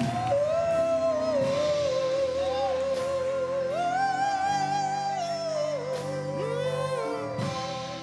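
Gospel singing: a solo voice holds long wordless notes with a wide vibrato, sliding up and back down in pitch, over sustained accompanying chords.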